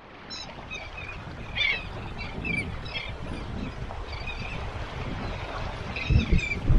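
Small birds chirping in short repeated calls over a low outdoor background hum of wind and water, with a few dull low thumps, the loudest near the end.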